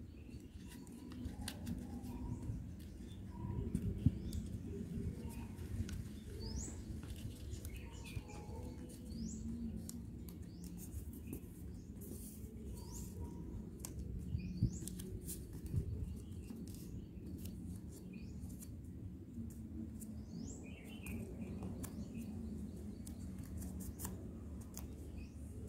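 Sheet of paper being folded and creased by hand, with soft crinkles and small taps, over a low steady background rumble. Birds chirp in the background, with short rising calls every few seconds.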